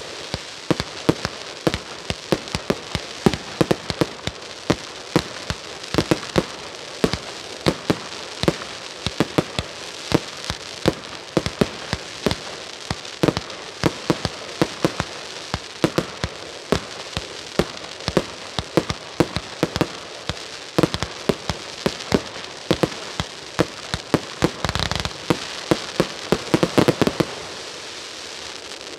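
A consumer 150-shot fireworks cake firing: a steady string of sharp shots, about three a second, each a launch pop and the burst overhead. Near the end the shots come thick and fast in a dense flurry, then the firing stops.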